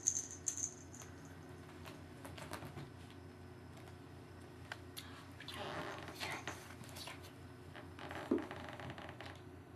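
Kittens playing: scattered light clicks, scratches and rustles of paws and claws on the floor and toys, with a longer rustle about six seconds in and a brief high squeak a little after eight seconds.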